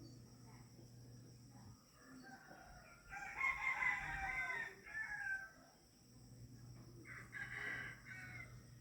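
Roosters crowing: one long crow about three seconds in and a shorter one near the end.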